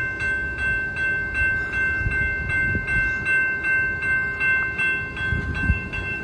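Railroad grade-crossing warning bell ringing at about three strikes a second, each strike a bright metallic ring, over a low uneven rumble.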